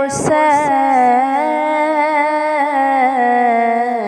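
A voice singing a Sufi devotional kalam, holding one long wavering note without words over a steady hummed drone, the melody stepping down lower near the end.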